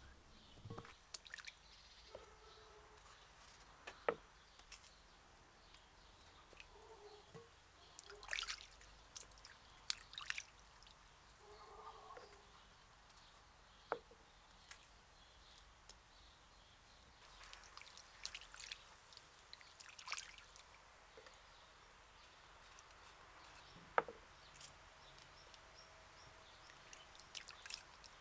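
Quiet background broken by scattered light clicks and taps, with a few brief rustling or splashing handling sounds.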